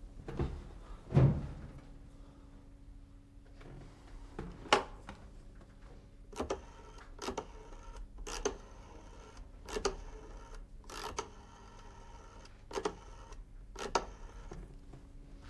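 A thump about a second in, then a number being dialled on a desk telephone: about eight sharp key presses at uneven intervals over roughly ten seconds.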